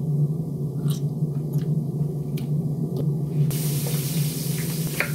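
Hot peppers going into hot frying oil: a loud hissing sizzle starts suddenly about three and a half seconds in. Under it runs a steady low hum, with a few light clicks before the sizzle.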